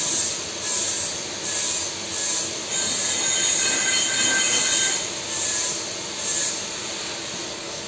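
High-pitched metallic screech and hiss of metalworking in a welding shop, swelling and fading about once a second.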